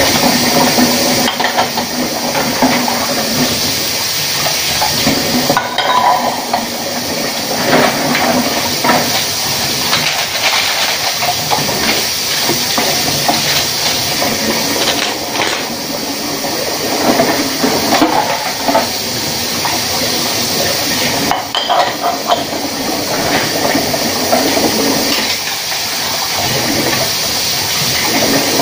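Ceramic bowls and plates clinking and clattering against each other as they are hand-washed in a sink, over the steady rush of running tap water.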